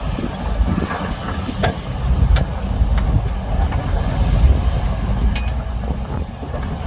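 Heavy diesel earthmoving machinery running with a deep, steady rumble, and a few sharp metallic clanks about two to three seconds in.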